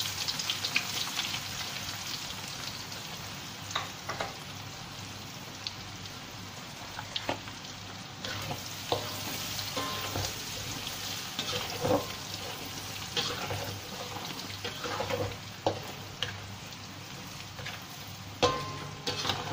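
Sliced ginger and garlic sizzling steadily in hot oil in a wok as the base of a sauce is sautéed. A spatula stirs through it, knocking against the pan now and then.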